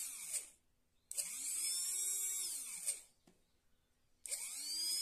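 Brushed 12 V DC motor, rewound with thicker 22-gauge copper wire, run off a battery in short bursts as its lead is touched on and off. Three times it whines up to a high speed with a brushy hiss and winds back down: a short burst ending just after the start, then two runs of about two seconds each. The high-pitched whine is the sign of the high speed gained from the rewind.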